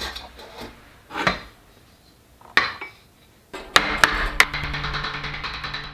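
Aluminium extrusions clanking as they are handled and set on a metal frame, then a few quick mallet blows knocking the extrusion frame together, with background music coming in over the last two seconds.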